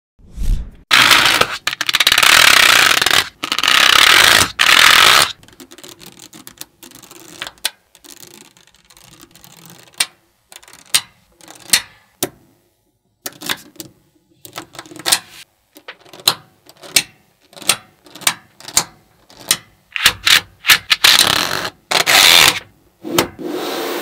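Small magnetic balls being handled on a table: two long, loud rushes of rattling in the first five seconds, then a string of sharp clicks, about two a second and closer together near the end, as the balls snap together.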